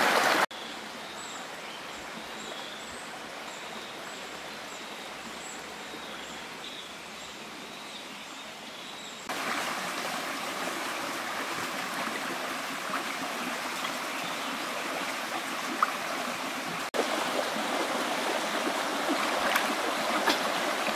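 Shallow rocky stream running steadily, water rushing over and between stones. The level jumps at a few points, louder from about nine seconds in.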